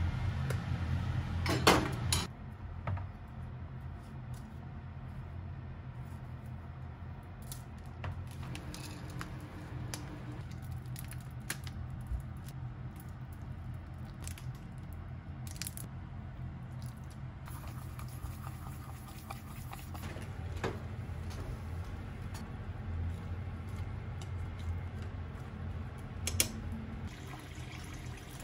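Home kitchen cooking sounds over a steady low hum: chopsticks scraping and knocking on a frying pan, with a sharp clatter about two seconds in. Then scattered small clinks and the trickle of seasoning poured from a bottle into a bowl. Near the end, tap water starts running into a pot at a stainless-steel sink.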